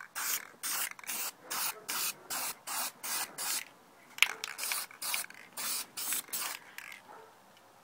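Aerosol spray paint can sprayed in short, rapid bursts, about four a second, onto airsoft gun parts. There is a brief pause with a click about four seconds in, and the spraying stops near the end.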